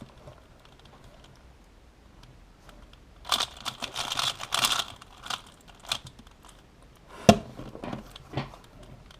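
Magnetic 3x3 speedcube (GAN 356 XS) being turned by hand: a quick run of clacking layer turns about three seconds in, then scattered single turns. One sharp, loudest clack comes about seven seconds in.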